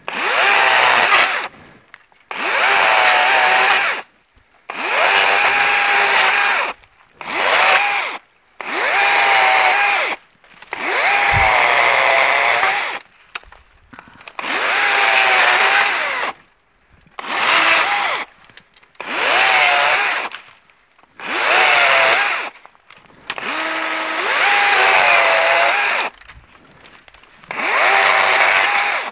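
DeWalt cordless battery chainsaw making a series of short cuts through bush honeysuckle stems. Its electric motor whine starts and stops about a dozen times, with no idling between cuts, and the pitch dips as the chain bites into the wood.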